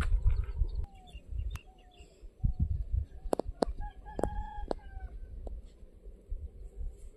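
A rooster crowing, drawn-out pitched calls that are clearest in the middle of the stretch, over a low rumble, with a few sharp knocks midway.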